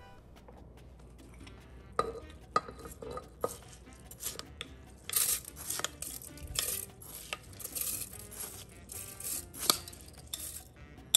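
Kitchen utensils clattering against pots and dishes: a run of irregular clinks, knocks and scrapes, with a few sharper strikes.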